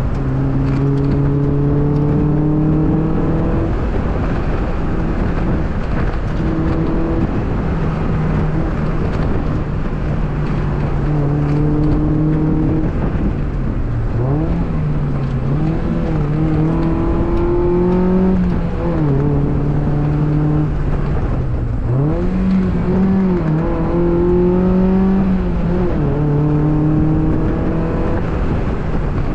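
2002 Mazda Miata's 1.8-litre four-cylinder engine driven hard, its pitch climbing, falling and dipping sharply again and again as it is revved and shifted, with steady road and wind noise underneath.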